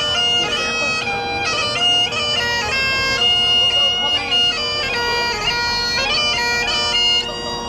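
Bagpipes playing a tune, the chanter stepping from note to note over a steady unbroken drone.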